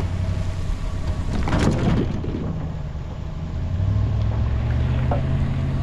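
A pickup truck's engine running steadily with a low hum and tyre and road noise on wet pavement, as it moves with the boat on its trailer. A brief clatter comes about one and a half seconds in.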